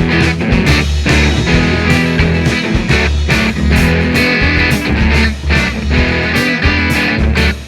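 Background rock music with guitar over a steady beat and bass.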